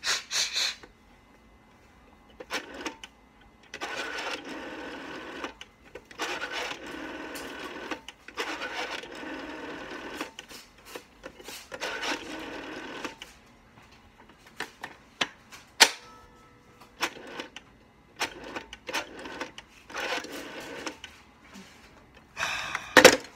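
Vintage rotary telephone dial being turned and let go again and again, each return run a whirring rattle of clicks; the longest runs come in the middle, followed by scattered single clicks and knocks.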